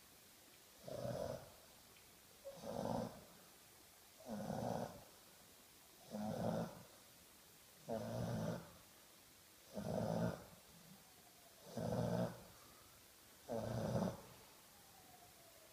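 English bulldog snoring in a steady rhythm: eight snores, each under a second long, about one every two seconds.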